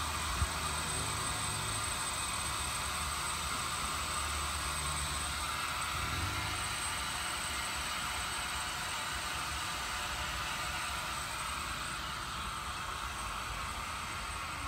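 Steady hiss with a low hum underneath from compressed natural gas fuelling equipment running, with a thin high whine held on one note.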